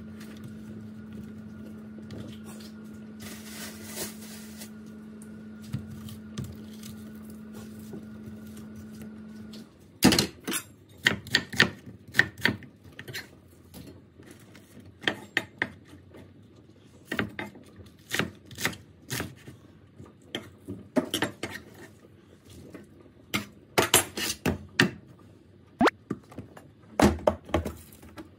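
Kitchen prep sounds: a knife, ingredients and a stainless steel pot knocking and clinking on a wooden cutting board, in many separate sharp clicks and knocks. A steady hum runs under the first third and then stops.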